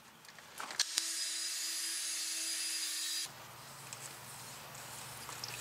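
Rust scale being scraped out of the wheel-bearing bore of a rear steering knuckle, ahead of fitting a new wheel bearing. A steady rasp starts sharply about a second in and cuts off a couple of seconds later, followed by fainter scraping.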